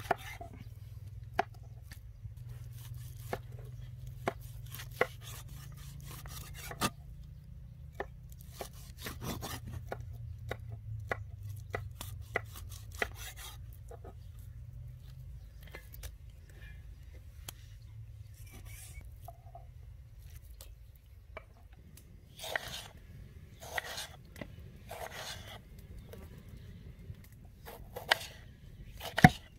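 Meat cleaver chopping goat meat on a wooden chopping block, sharp single knocks every second or two. Later, a few longer, softer strokes of a knife slicing tomatoes on a wooden board.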